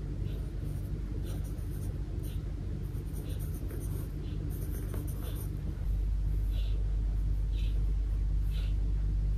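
Coloured pencil scratching across drawing paper in short sketching strokes, over a steady low hum that gets louder about six seconds in.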